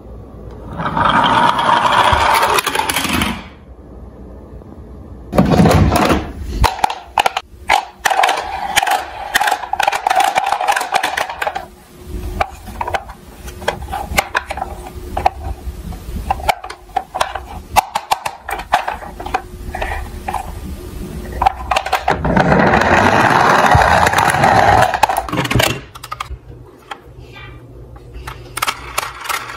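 Plastic toy emergency vehicles rolling down a wooden ramp, a long rolling run about a second in and another about twenty-two seconds in. Between the runs, hard plastic toys click and knock as they are handled in a box.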